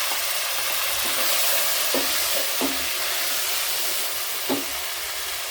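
Chopped onions frying in cooking oil in a pot, with a steady sizzle. A spoon knocks against the pot a few times as it stirs.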